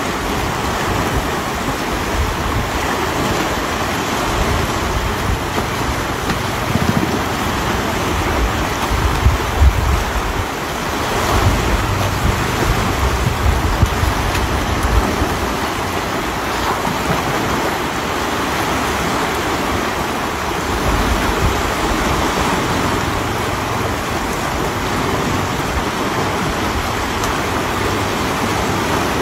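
Fast, swollen river rushing steadily, with wind buffeting the microphone in uneven low gusts.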